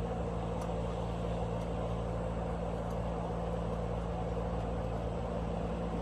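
An engine or motor running steadily at a constant speed, with a low, even hum.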